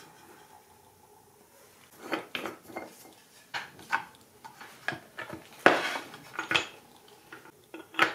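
Wooden vise parts being handled and set down on a wooden workbench: scattered knocks and clatters, a quick cluster about two seconds in and the loudest knock near six seconds.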